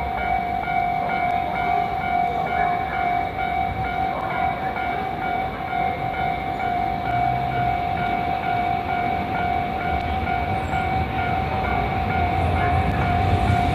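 Japanese level-crossing warning bell ringing steadily at about two strikes a second, with the rumble of an approaching train growing near the end.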